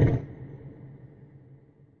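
The end of a loud, low rumbling Godzilla sound effect: it cuts off a fraction of a second in and leaves a fading echo that dies away to silence.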